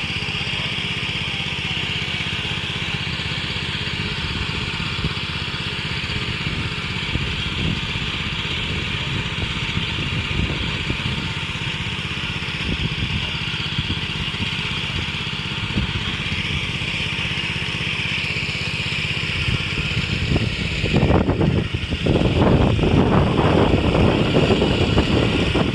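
Small engine of a Bartech PM100 motorized crop sprayer running steadily under load while spraying. About 21 s in, strong wind buffeting the microphone gets louder and rougher.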